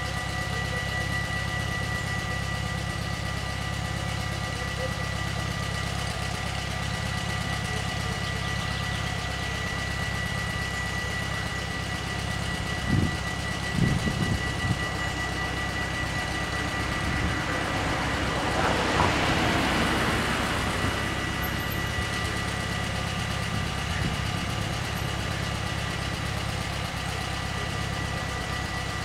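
Dutch level-crossing warning bells ringing on and on, over the low steady running of a car engine idling at the lowered barriers. About two-thirds of the way through, a broad rushing noise swells and fades.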